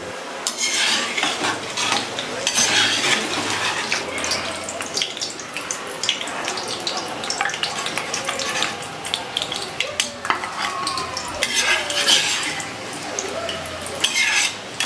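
Potato fries deep-frying in hot oil in a kadai, a steady sizzle, with a steel slotted spoon clinking and scraping against the pan as the fries are turned and lifted out.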